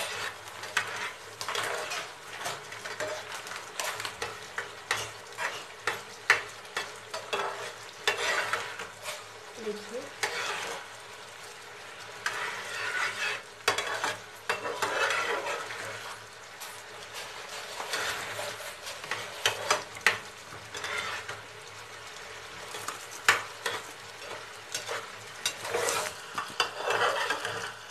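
Spatula stirring and scraping thick semolina halwa in a metal pan over a high gas flame, with irregular scrapes and taps against the pan over a steady sizzle. The halwa is thickening as the water cooks off.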